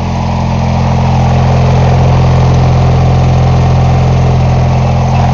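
MTD lawn tractor's engine running at a steady speed, a little louder about a second in.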